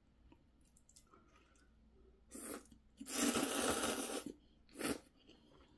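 A person slurping instant ramen noodles from a bowl: a short slurp about two seconds in, then one long slurp of over a second, and a brief one near the end.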